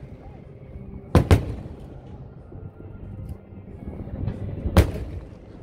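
Aerial firework shells bursting overhead: a sharp double bang about a second in and another loud bang near the end, each trailing off in a rumbling echo.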